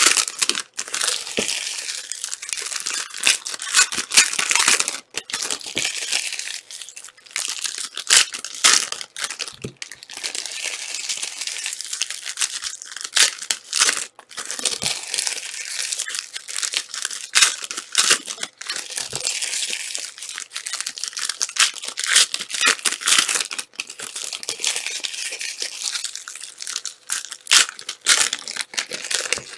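Plastic wrapping being crinkled and torn by hand in irregular spurts, with many small sharp crackles: trading-card packaging being opened and handled.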